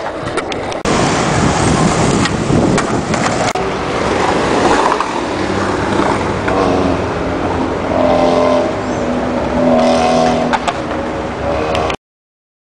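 Skateboard wheels rolling on concrete: a continuous rough roar with a few sharp clacks of the board. A steady hum with a pitch joins about halfway through, and the sound cuts off suddenly near the end.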